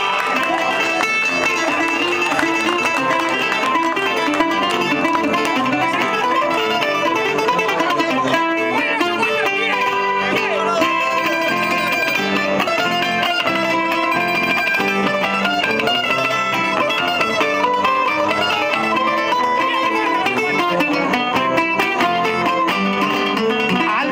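Plucked-string band playing the steady instrumental interlude of a Cuban punto guajiro, the tonada played between the improvised décimas.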